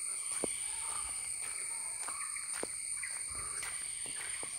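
Steady, high-pitched chorus of insects such as crickets or cicadas, several shrill tones held without a break, with a few faint clicks.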